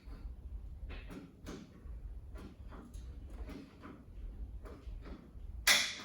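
Light mechanical clicks and creaks from the hydraulic cab-tilt mechanism of a Mack cabover as the cab comes down. Near the end comes one loud, sharp clack as the cab's hold-down latches open.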